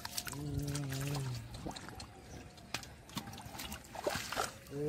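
Shallow muddy water splashing and trickling as fish thrash and are grabbed by hand. Scattered short splashes throughout, with a steady drawn-out call lasting about a second near the start.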